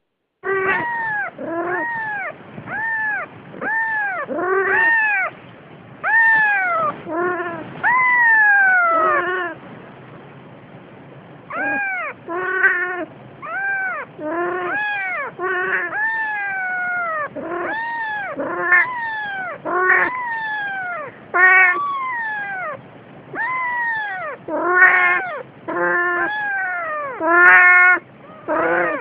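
Siamese cat meowing over and over, about one call a second, each call rising and then falling in pitch, with a short pause about ten seconds in.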